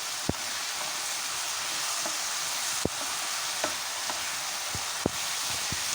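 Onions, tomatoes, chillies and lentils sizzling steadily in hot oil in a pan while being stirred, with a few sharp clicks of the spoon against the pan. The mixture is near the end of its frying for the chutney.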